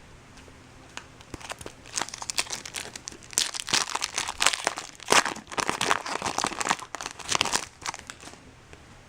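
2012 Bowman Chrome card pack's foil wrapper crinkling as it is torn open and handled, a dense run of crackles from about two seconds in until shortly before the end.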